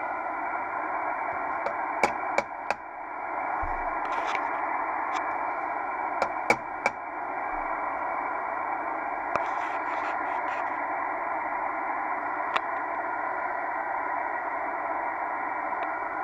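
Kenwood TS-700SP transceiver's receiver putting out a steady rushing hiss from its speaker, cut off sharply above the voice band. A few sharp clicks and crackles break in as the RX board is probed, most in the first seven seconds.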